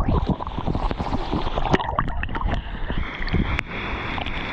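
Water splashing and sloshing right at the microphone as a swimmer treads water in a deep pool, with low rumbling buffeting on the microphone.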